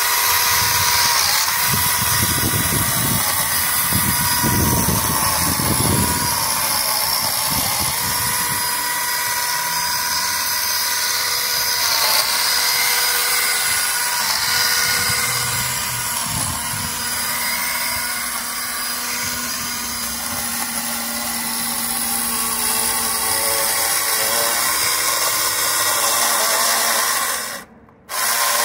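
Cordless mini chainsaw running steadily with a high motor whine as its chain cuts through ivy stems. The whine dips in pitch several times, and the sound drops out briefly near the end.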